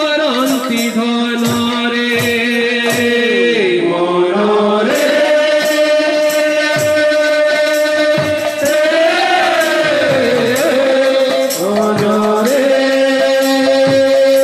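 Devotional kirtan music: voices singing long held notes that slide between pitches, over a steady run of khol drum strokes.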